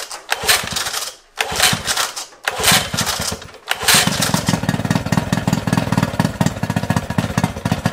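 A boat motor that has sat unused for 12 years is turned over and fires in short sputtering bursts about once a second, then catches about four seconds in and runs steadily with a fast, even beat. It is its first start after storage, run briefly out of the water.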